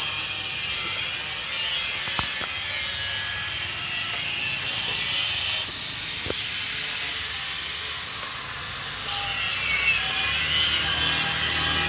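Homebuilt helicopter's engine running steadily during an engine check, with a short dip in level about six seconds in.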